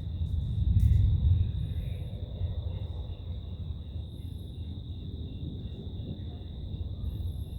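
Night insects chirping outdoors: a steady high trill with a softer chirp repeating about twice a second, over a low rumble that swells about a second in.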